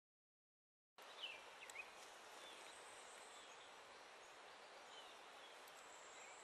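Faint outdoor ambience that starts about a second in: a steady hiss with a few short bird chirps and a thin, steady high-pitched whine.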